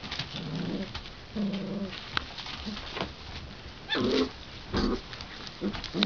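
Rough collie puppies giving short low growls and grumbles while playing with a plush toy, several times, amid the crackle of newspaper under their paws.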